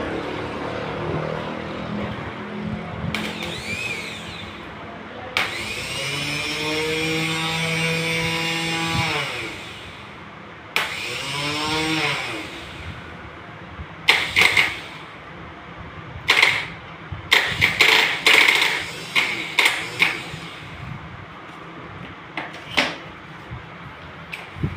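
Suzuki Cultus starter motor run on the bench off a car battery: it spins up with a rising whine, runs for a few seconds and winds down, then runs again briefly about eleven seconds in. A string of short, sharp bursts follows in the second half.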